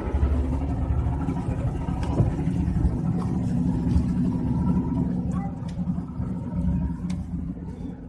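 A boat engine running steadily under way, heard from the deck, with a few light knocks near the end.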